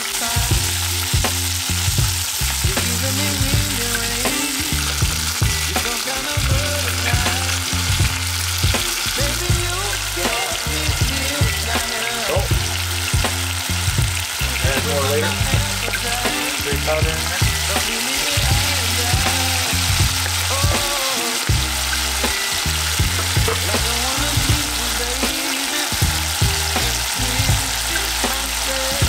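Chicken pieces sizzling in a pot on a camp stove, a steady hiss, under background music with a bass line that steps from note to note.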